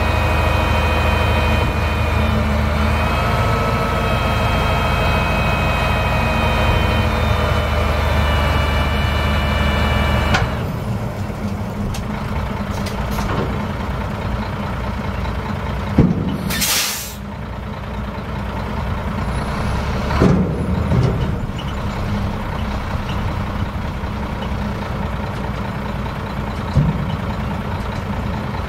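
1989 Ford LT8000 dump truck's 7.8L six-cylinder diesel running at raised revs, climbing a little about three seconds in, while the PTO-driven hoist lifts the dump bed. About ten seconds in it drops back to a steady idle. About sixteen seconds in a loud hiss of released air lasts about a second, and a few knocks follow as the bed comes back down.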